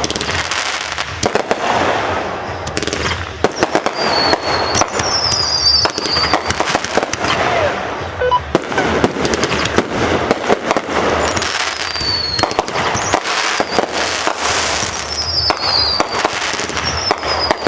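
Fireworks display: a dense, continuous barrage of bangs and crackling, with several short high whistles that fall in pitch.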